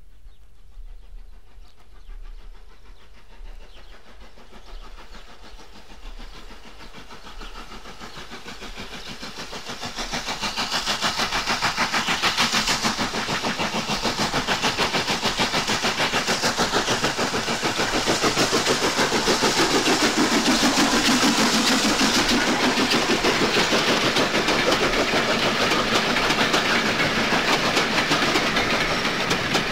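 Southern 'King Arthur' (N15) class 4-6-0 steam locomotive climbing a 1 in 93 gradient with an express. Its exhaust beats start faint, swell to loud about ten seconds in, and keep on as a rapid, steady beat.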